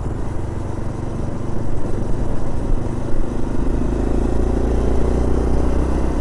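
Motorcycle engine running while riding in traffic, over a steady rush of road and wind noise; the engine note grows louder and rises slightly in pitch about halfway through.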